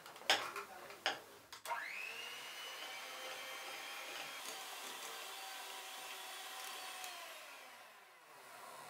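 A few sharp knocks, then an electric hand mixer starts about two seconds in, its beaters whipping cream and running steadily with a high whine, before it winds down and stops near the end.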